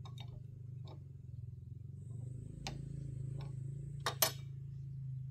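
A few sharp metal clicks and knocks from hand work on a walking tractor, the loudest a quick double knock about four seconds in, over a steady low hum.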